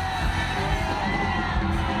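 Live band music played loud over a PA, with singing and shouts from the crowd, heard from within the audience.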